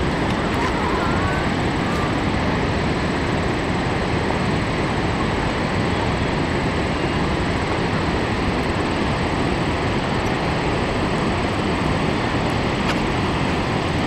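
Waterfall rushing: the constant, even rush of Niagara's Horseshoe Falls pouring over its brink, with no let-up.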